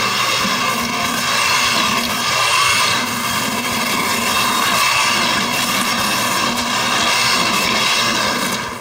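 Large commercial immersion blender running steadily, its motor whirring as the blade purees a thick fruit mixture in a plastic bucket.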